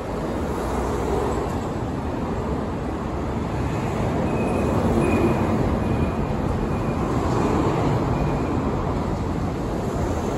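Steady rumbling outdoor traffic-type background noise, growing slightly louder, with a faint thin high tone coming and going in the middle.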